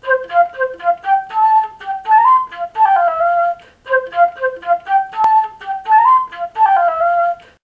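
A silver concert flute playing a solo melody of short, quick notes. The same phrase is played twice, with a brief break about halfway through.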